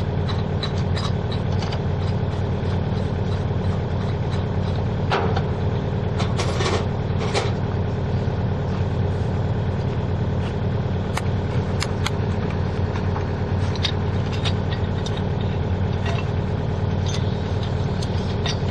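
An engine idling steadily throughout, with scattered light clicks and taps of metal fittings being handled, a small cluster of them about five to seven seconds in.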